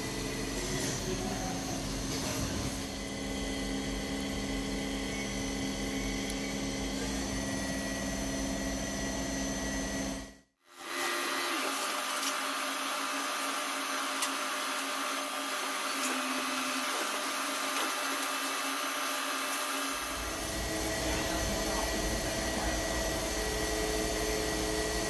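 Steady machine whirring with a constant hum, cut off briefly about ten seconds in and then carrying on.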